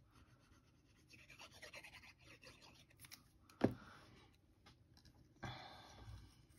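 Faint handling of folded kraft cardstock pennants: soft paper rustling and scratching, with one sharp knock about halfway through and a longer, louder rustle near the end as a pennant is worked onto the string.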